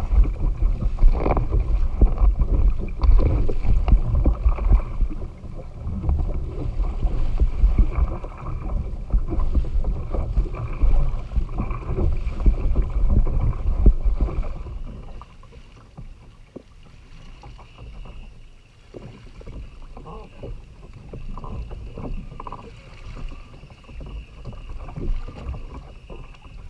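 Wind rumbling on the microphone and water slapping and splashing at a kayak's hull, with a fish thrashing at the surface beside the kayak at the start. It goes much quieter a little past halfway.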